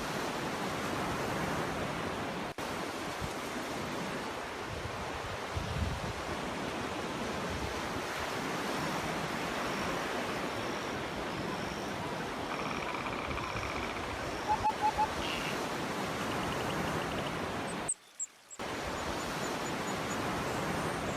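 Surf washing steadily onto a beach, with short bird calls over it: a run of high notes, then three quick louder notes a little past halfway. The sound drops out briefly near the end.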